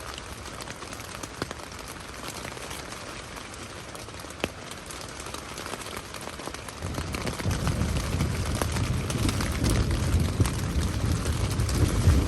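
Rain falling steadily, an even hiss with scattered small drips and ticks. About seven seconds in, a louder low layer comes in and builds.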